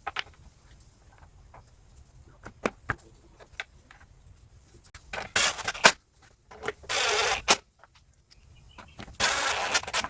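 Small clicks and knocks of hand work, then the freshly re-roped recoil starter on a 173 cc Powermore mower engine pulled three times, each pull a short whir of the rope running out, about two seconds apart; the engine does not catch.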